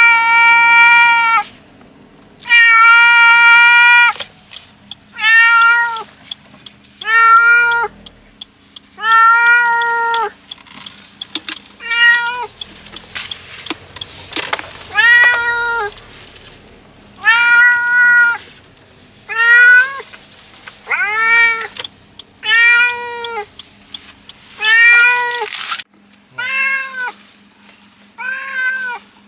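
A cat shut in a mesh pet carrier in a car meowing loudly over and over: about fifteen meows, each up to a second and a half long, a second or two apart. It is the distressed crying of a cat that dislikes riding in the car.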